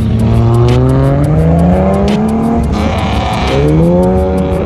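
Car engine accelerating: the engine note climbs steadily for about two and a half seconds, a brief rushing noise follows, then a second rising engine note near the end as cars pull away.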